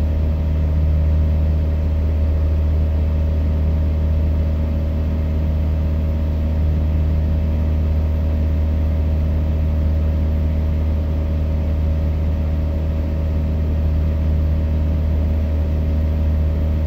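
Single-engine Aquila light aircraft's Rotax four-cylinder engine and propeller droning steadily at climb power, heard inside the cockpit.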